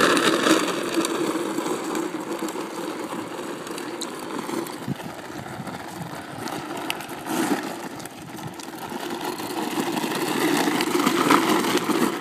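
Green Machine drift trike's wheels rolling on rough asphalt, a steady noise that is louder as it passes close by at the start and again near the end, and fainter in between as it rides away.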